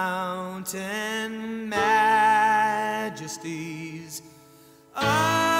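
Background music: a slow piece with long, wavering held notes. It drops away briefly about four seconds in and comes back fuller near the end.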